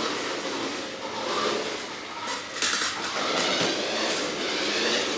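Small RC car on slick tyres driving and sliding around, its motor running with a wavering whine under a steady noise, with a few short sharp scrapes or knocks about two and a half seconds in.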